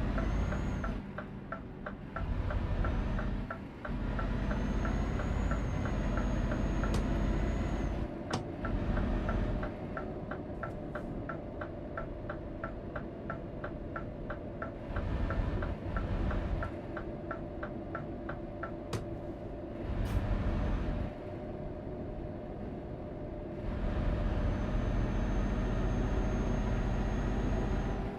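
Truck engine running, its low rumble swelling and easing as it accelerates and slows. Through roughly the first half a turn-signal indicator ticks, about three ticks a second, and a thin high whine comes and goes with a few sharp clicks.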